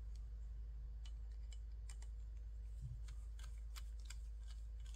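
Irregular small metallic clicks and ticks of aluminium standoffs and steel screws being handled and screwed by hand into a carbon-fibre drone frame, growing busier in the second half. A steady low hum runs underneath.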